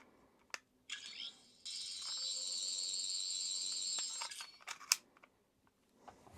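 A toy 15th Doctor sonic screwdriver plays its electronic sound effect from a button press: a click, a short rising chirp about a second in, then a steady high warbling buzz lasting about two and a half seconds. A few sharp button clicks follow.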